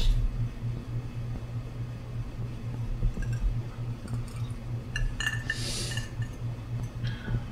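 A drinking glass clinks with a brief ringing about five seconds in, as it is set down, followed by a short hiss, over a steady low hum.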